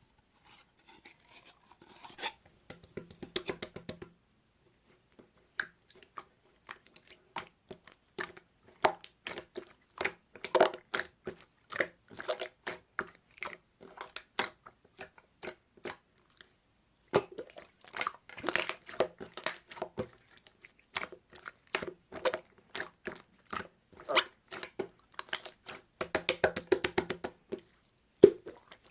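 Slime being squeezed and pressed by hand, giving dense, irregular clicking and popping with short pauses in between.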